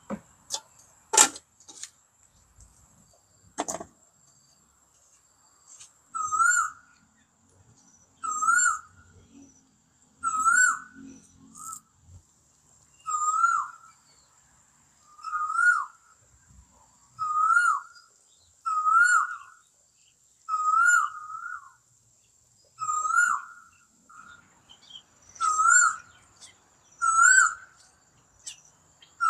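A bird calls over and over: a loud, wavering whistled note repeated about every two seconds. A few sharp knocks come in the first four seconds, and a faint steady high-pitched tone runs underneath.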